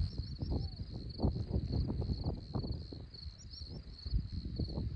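Crickets chirping in steady pulsing trills, with irregular low knocks and rustles throughout.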